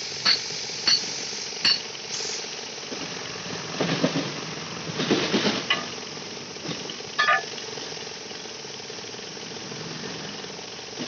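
Metal tools striking metal during a backhoe loader tyre change: three sharp ringing clanks in the first two seconds, a jumble of knocks and scraping around the middle, and a single clink later on. A steady engine hum runs underneath.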